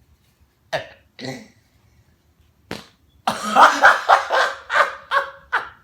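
Sweaty bare skin peeling off a rubber horse-stall mat during crunches, making fart-like noises. A few short squelches come first, then from about halfway a longer run of rapid rippling pulses.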